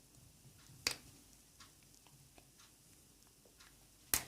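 Screwdriver prying at the plastic cover over a lithium-ion battery's circuitry: two sharp clicks, about a second in and near the end, with faint ticks in between.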